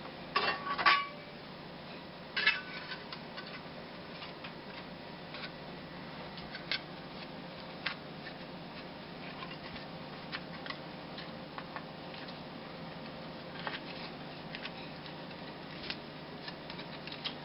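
Metal pieces clinking and clattering as they are handled: two louder clusters of clatter in the first three seconds, then scattered light clicks and taps, over a steady low hum.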